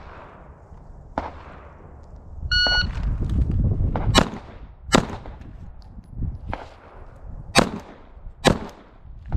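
A shot timer beeps once about two and a half seconds in, followed by pistol shots: four loud cracks in two pairs, about a second and three seconds apart, with a fainter shot between them. Each shot echoes briefly. Two quieter shots come before the beep.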